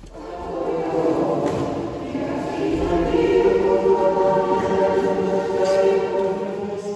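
A choir singing long, held chords that come in at the start and swell over the first second.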